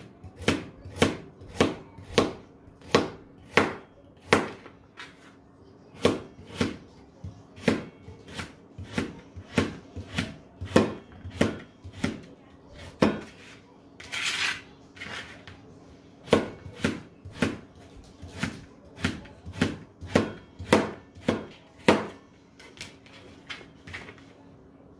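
Chef's knife slicing carrots into rounds on a thin plastic cutting board: a steady series of sharp chops, about two a second, each one the blade striking the board. The chopping stops near the end.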